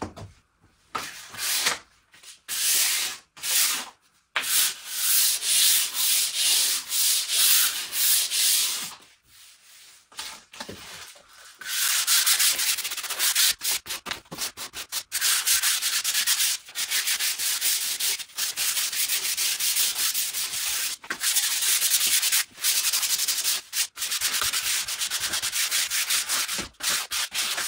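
Hand sanding of stained wood with a piece of 400-grit sandpaper, lightly knocking back the dried color. It makes a run of quick rasping strokes with short breaks, pausing for a couple of seconds about nine seconds in.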